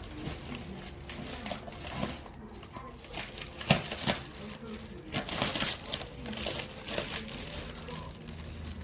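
Irregular crinkling and rustling of something being handled, with a few sharper crackles near the middle, over faint voices.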